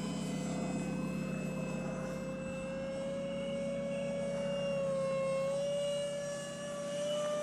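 Radio-controlled model F-4 Phantom jet in flight, its engine giving a steady, high whine that rises slightly in pitch and swells a little around five seconds in as it passes.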